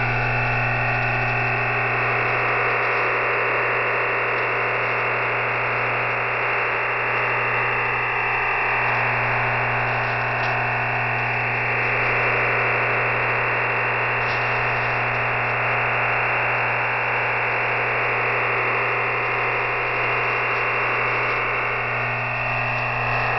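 EasyDRF OFDM digital data signal received off shortwave through an SDR. It sounds as a dense, steady rushing hiss across the voice band, with a steady low hum beneath and slight fading. The signal is strong enough, about 10 dB SNR on the decoder, for files to be decoded from it.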